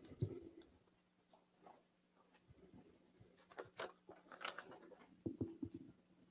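Faint rustling and light clicks of small items being handled by hand, over a low steady hum.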